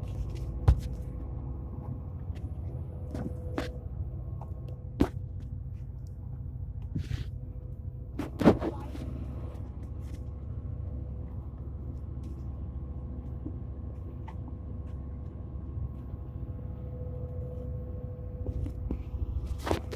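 Steady low engine rumble with a faint steady hum, broken by a few sharp knocks and rubs from fingers handling the phone, the loudest about eight and a half seconds in.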